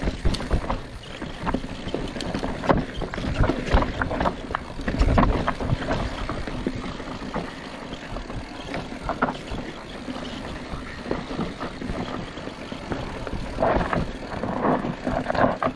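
Mountain bike rolling fast down a rocky dirt trail: tyre noise on dirt and loose stones with frequent knocks and rattles from the bike over bumps, louder about five seconds in and again near the end, with wind on the microphone.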